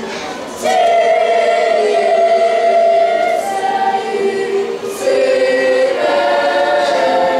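Children's choir singing, holding long notes, with new phrases coming in about half a second in and again about five seconds in.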